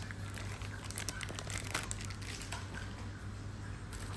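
Faint rustling and crinkling of packaging being handled, with scattered small clicks, over a steady low background hum.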